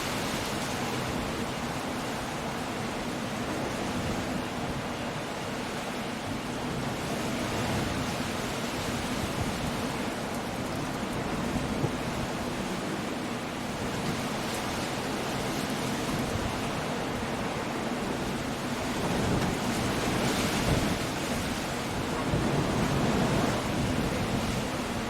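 Coastal storm: steady rain and wind with surf breaking below, a constant dense hiss. It swells twice into a louder low rumble in the last third.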